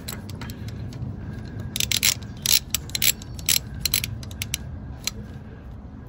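Socket ratchet clicking in quick runs as it is swung back and forth on a bolt of a motorcycle's rear brake caliper, with the loudest clicks in the middle.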